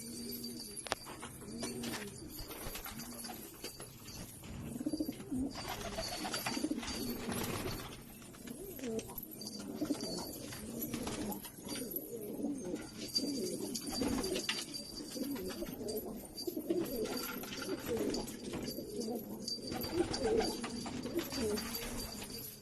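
Several domestic pigeons cooing, their low calls overlapping, busiest from about five seconds in.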